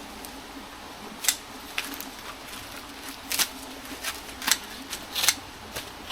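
Scissors snipping through banana leaves: a handful of sharp cuts at irregular intervals, spaced wider at first and coming closer together in the second half.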